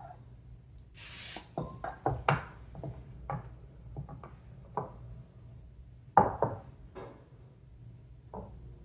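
A short hiss of cooking spray about a second in, then a string of knocks and taps of things handled and set down on a kitchen counter, the loudest about six seconds in.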